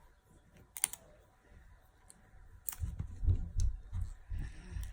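Plastic toy packaging being handled and opened: a few sharp clicks and crackles, then a run of low bumps and knocks in the second half.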